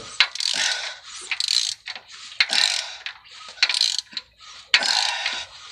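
Ratchet wrench clicking in short repeated strokes, about two a second, with a few sharper knocks, as it turns the crankshaft of a Dodge 4.7 V8 over by hand to check the timing. The engine has no spark plugs or rocker arms in, so it turns freely.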